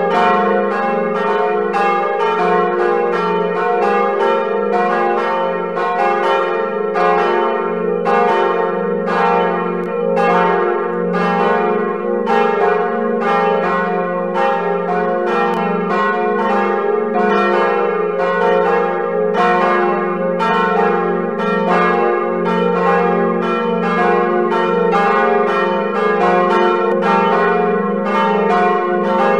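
Full peal of several church bells swinging together, played on a computer bell simulator. Overlapping strikes come at about two to three a second in an uneven rhythm, each ringing on over a steady low hum.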